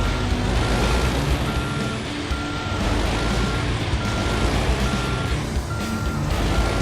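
Backup alarm of a heavy diesel vehicle beeping evenly, a little more than once a second, while the vehicle reverses. Under the beeps runs a deep, steady diesel engine rumble.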